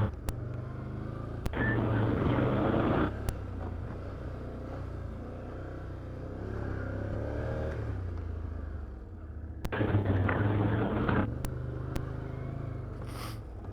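Can-Am Outlander 850XT ATV engine pulling along a rough trail, opening up twice in bursts of throttle of a second or two with an easier, lower-revving stretch between. A few sharp knocks come through as it goes.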